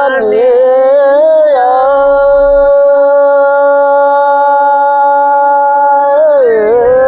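Man singing a Nepali local folk song from Jajarkot, holding one long steady note for several seconds. The pitch wavers at the start and dips near the end.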